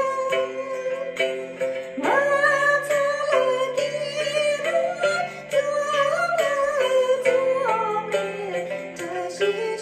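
A woman singing a Tibetan song into a handheld microphone, holding long notes and leaping up to a higher note about two seconds in, over recorded accompaniment with a steady beat.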